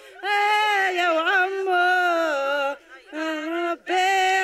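A group of women singing a traditional Kabyle song together in long, held phrases, broken by two short pauses for breath. No drum is heard.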